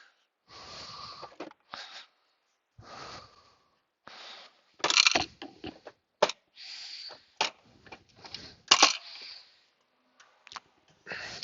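Plastic car center console and its wiring connectors being handled and unplugged: a string of scrapes, rustles and sharp plastic clicks, with the loudest snaps about five and nine seconds in.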